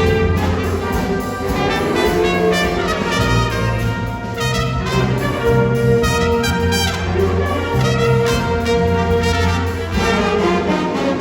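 Instrumental music led by brass, with held horn notes over a moving bass line.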